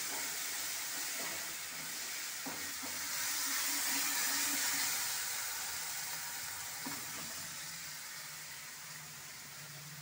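Spice masala sizzling as it fries in hot oil in an aluminium kadhai, with a few clicks of a perforated metal spoon against the pan as it is stirred. The sizzle swells in the middle and fades toward the end.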